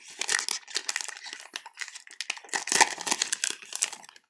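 Foil wrapper of a basketball trading card pack crinkling and tearing as gloved hands open it, a dense run of irregular crackles.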